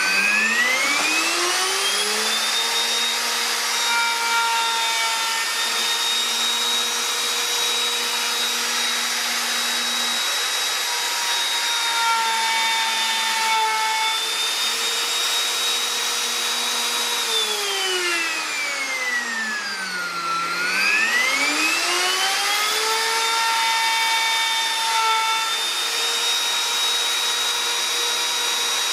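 Bosch plunge router running at full speed while it is pushed across a board in a surfacing jig, flattening the wood: a high, steady whine. About two-thirds through, the pitch sags over a few seconds and then climbs back to full speed.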